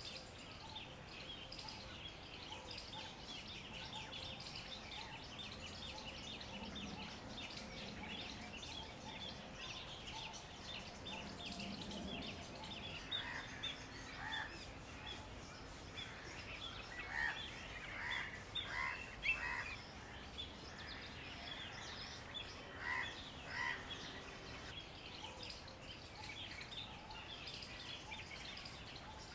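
Outdoor birdsong: a dense, steady chatter of small birds chirping, with a louder bird calling in short repeated notes through the middle stretch and again briefly later.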